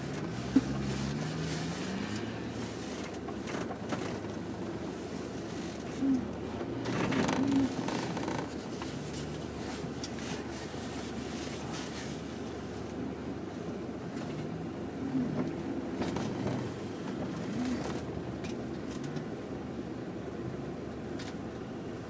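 Off-road 4x4 engines in deep snow, heard from inside another vehicle's cabin: a steady engine hum underneath while a stuck 4x4's engine revs up as it tries to push through the drift, rising in pitch near the start and again later. A sharp click about half a second in.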